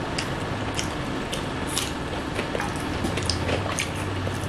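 Eating sounds: chewing with many small wet clicks and smacks as paratha and mutton liver curry are eaten by hand, over a low steady hum that grows a little louder near the end.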